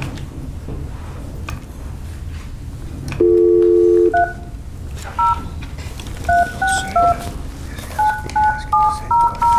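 Speakerphone dial tone sounding for about a second, starting about three seconds in. It is followed by a string of about ten short touch-tone (DTMF) key beeps as a phone number is dialled.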